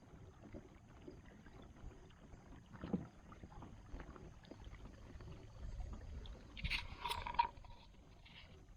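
Kayak moving over lake water, with faint water noise against the hull and a few small knocks. There is a brief louder rustle about seven seconds in.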